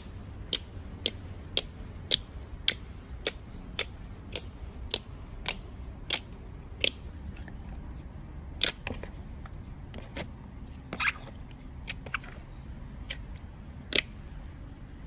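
Slime being worked by hand, giving sharp clicking pops about twice a second for the first seven seconds, then fewer and more irregular ones, over a steady low hum.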